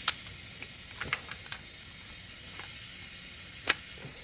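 Impact wrench running on a lug nut to pull a new wheel stud through the hub until it seats: a steady hiss with a few sharp clicks, the loudest near the end, stopping suddenly at the end.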